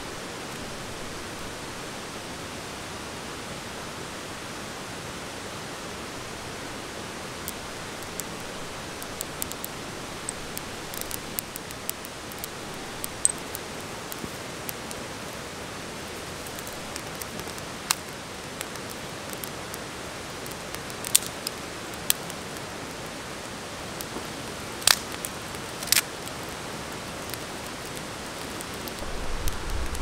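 Steady rush of a nearby waterfall, with the crackling and snapping of a small bundle of dry twigs catching fire: scattered crackles begin several seconds in and grow more frequent, with a few louder snaps near the end.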